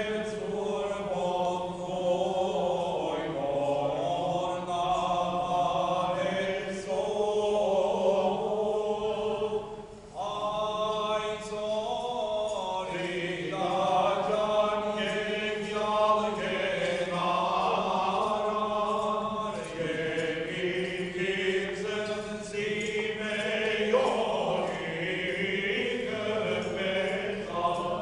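Armenian liturgical chant sung by the vested clergy, several men's voices together in slow, held lines, with a short pause about ten seconds in.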